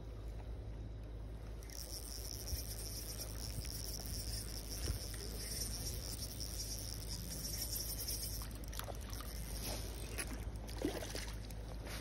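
Small spinning reel whirring steadily and high-pitched for several seconds while a hooked rainbow trout is played in, then splashing water over the last few seconds as the trout thrashes at the surface and is scooped into a landing net.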